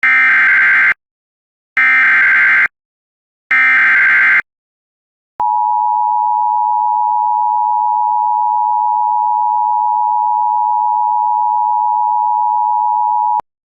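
Emergency Alert System header: three loud one-second bursts of buzzing SAME data tones, then the two-tone EAS attention signal held steady for about eight seconds before cutting off abruptly. The sequence marks the start of an emergency alert, here a severe thunderstorm warning.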